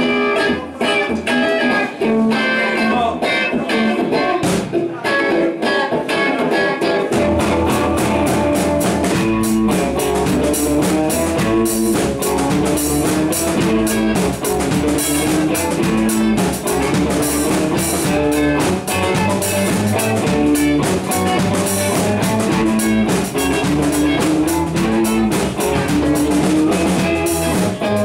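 Live electric blues band playing an instrumental intro. Electric guitars play the riff alone at first, and bass and drum kit join about seven seconds in.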